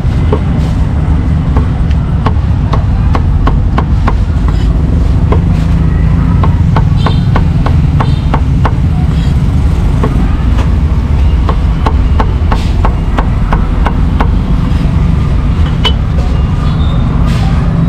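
Cleaver chopping meat and greens on a wooden chopping block: a run of sharp knocks at an uneven pace. Under it runs a loud, steady low rumble of street traffic.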